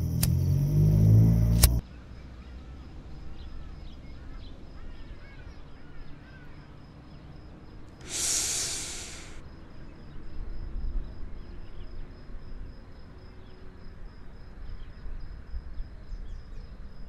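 Background music cuts off about two seconds in. It leaves faint ambient background noise with a steady, high, pulsing tone and a few soft chirps. A short burst of hiss lasting about a second and a half comes near the middle.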